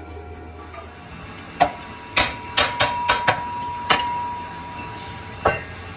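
Hammer blows on a steel workpiece: eight sharp strikes, mostly in a quick cluster, with a steady metallic ring that hangs on between them.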